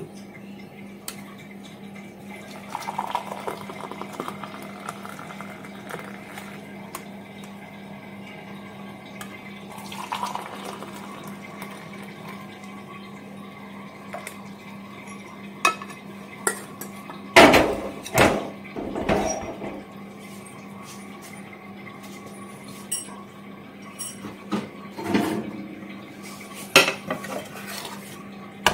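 Hot tea being poured through a small strainer into ceramic cups, with clinks and knocks of the strainer against the cups and the cups being set down on a tray. The loudest clatter comes in the middle, over a low steady hum.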